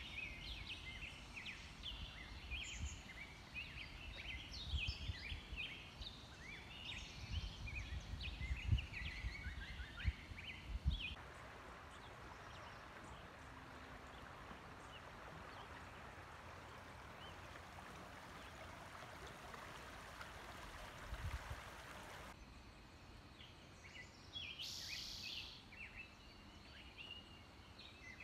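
Birds chirping over the river with low rumbling on the microphone. About eleven seconds in this gives way to the steady rush of shallow river water flowing over stones. Near the end the water stops and birds call again.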